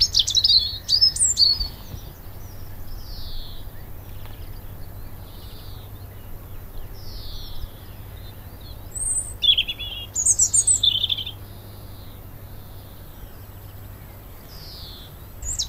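Robin singing: quick, high chirping phrases near the start and again about ten seconds in, with fainter single notes repeating every second or two between them.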